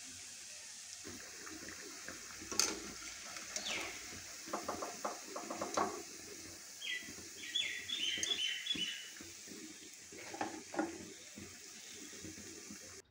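Chana dal pakoras sizzling steadily in hot oil in a steel kadhai, with sharp clinks of a wire-mesh skimmer against the pan as they are turned. A run of short high bird chirps comes about two-thirds of the way through.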